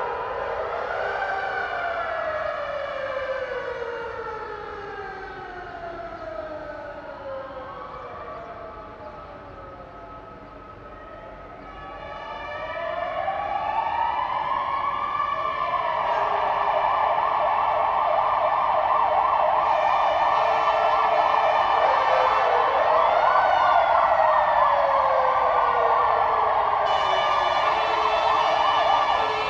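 Fire engine sirens, several overlapping, wailing slowly up and down. They fade down about a third of the way in, then one winds back up and switches to a rapid yelp that is the loudest part, running on with other wails over it.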